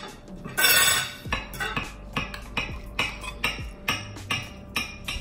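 Knife and fork clinking and scraping on ceramic dinner plates, with many short clinks and one louder, longer scrape about a second in. Music plays quietly underneath.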